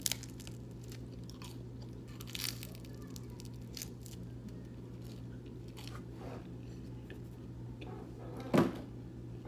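Chewing and crunching of vegan pizza, scattered small mouth clicks over a steady low hum, with one brief louder sound about eight and a half seconds in.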